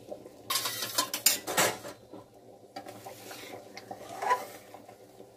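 Metal ladle stirring simmering dal in a metal pan, scraping and clinking against the pan. The knocks cluster about half a second to two seconds in, and again from about three seconds, with a sharp clink near the end.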